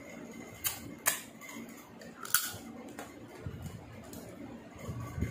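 Cooked crab shell cracking between the teeth in three sharp crunches in the first two and a half seconds, followed by softer chewing.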